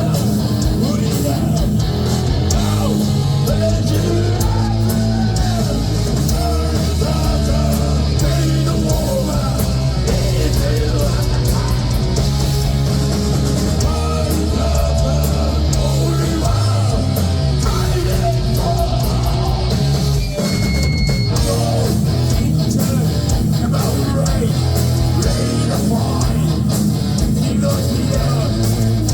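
Heavy metal band playing live: loud electric guitars, bass and drums in continuous, dense music.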